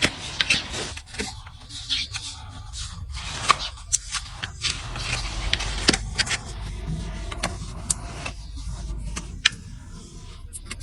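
Hoof-trimming tools working on a horse's hoof: a steady run of scraping with many sharp clicks over a low rumble.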